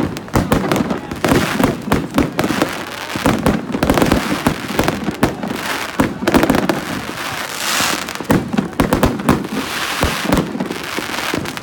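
Aerial fireworks going off in a dense, continuous barrage: many overlapping bangs and pops with crackling, swelling into a loud sizzling crackle about two-thirds of the way through.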